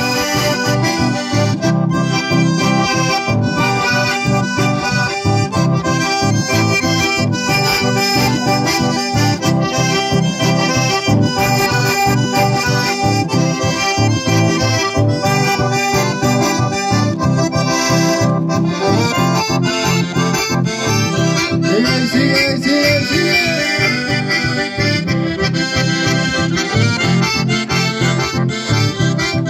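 Live band music: accordions playing the melody over a strummed acoustic guitar, with a steady dance rhythm and no pauses.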